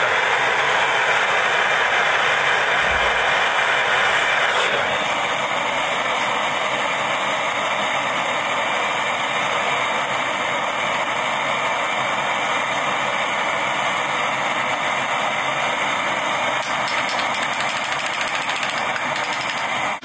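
Handheld gas torch burning with a steady hiss while heating the small end of a connecting rod for fitting the piston pin. The hiss drops slightly in level and tone about five seconds in.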